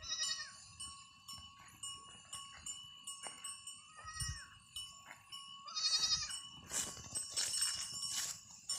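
A herd of goats bleating: short, high, wavering calls at the very start, about four seconds in and about six seconds in. Light clinking and jingling comes in near the end.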